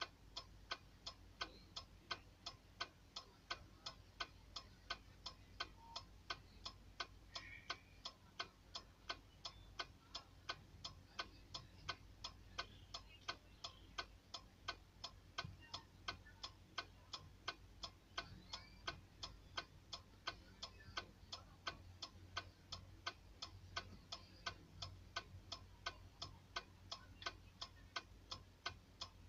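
Steady, evenly spaced sharp ticking, about two to three ticks a second, over a low rumble.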